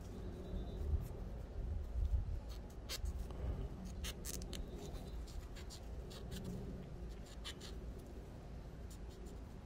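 Cotton swab rubbing and scrubbing the face of an AR-15 bolt: a quiet, scratchy rubbing with scattered small clicks from the metal bolt being handled in gloved hands.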